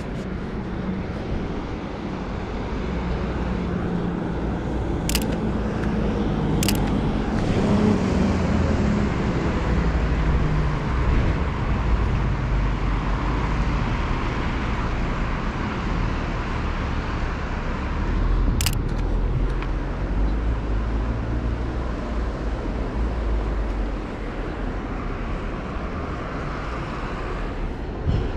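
Road traffic on a city street: cars passing with a steady low rumble and tyre noise, broken by three sharp clicks.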